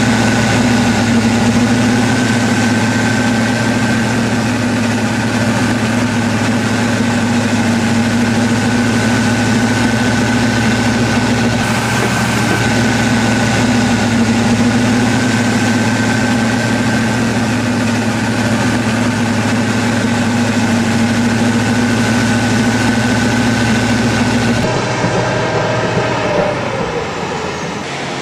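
Caterpillar D11R chip dozer's Cat 3508B V8 diesel running steadily, with a steady high whine over the engine note. Near the end it cuts to a quieter, different engine sound.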